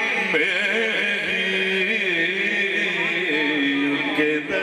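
A man singing a naat into a handheld microphone, amplified over a sound system: a continuous chanted melody of long held notes that bend and waver.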